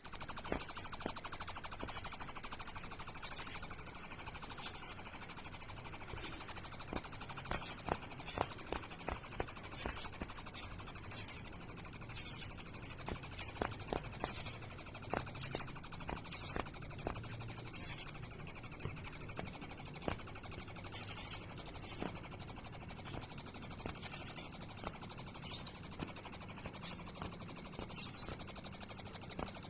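Plain prinia (ciblek sawah) singing its 'bren': one long, unbroken, rapid high trill, with short higher notes dropped in every second or so.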